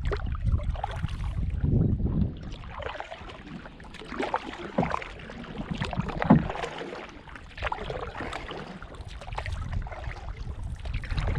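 Canoe being paddled: paddle strokes swishing through the water with irregular knocks against the hull, the loudest about six seconds in, over a low rumble of wind on the microphone.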